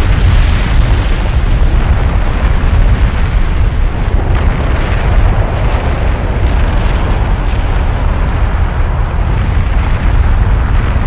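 Taal volcano erupting: a loud, steady, deep rumble that goes on without a break.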